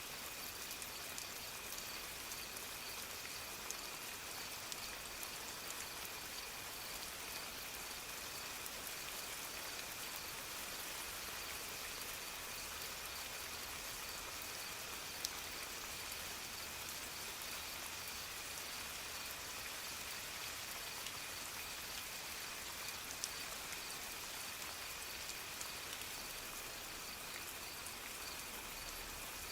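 Steady soft rain falling, with scattered drops ticking and a faint steady high tone running underneath.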